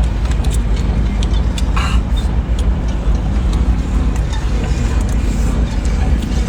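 Steady low engine rumble, with scattered small clicks over it.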